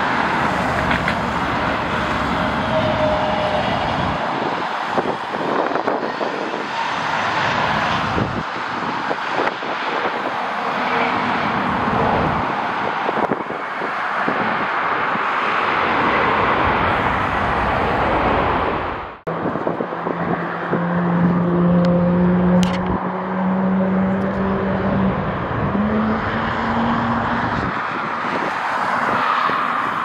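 Steady rushing noise of storm wind mixed with engine noise. About two-thirds of the way through the sound cuts off sharply. It resumes with a steady low engine hum that steps up slightly in pitch near the end.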